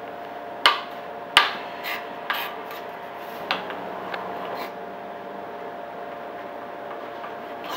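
Kitchen knife sawing through a cooked brisket on a cutting board, with a few sharp knocks of the blade against the board in the first five seconds, the two loudest about a second in.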